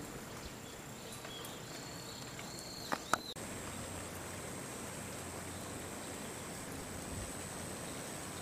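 Outdoor background noise with a few faint bird-like chirps early on. Two sharp clicks come about three seconds in, and after them a thin, steady high-pitched tone and a low hum.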